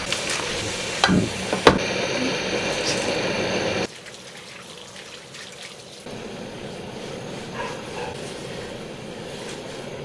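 Portable butane camping stove's burner hissing steadily, with two sharp metal knocks as a cast-iron pot lid is set down on its pot supports. The hiss drops abruptly to a much quieter one just before the halfway mark while oil is burned onto the lid to season it.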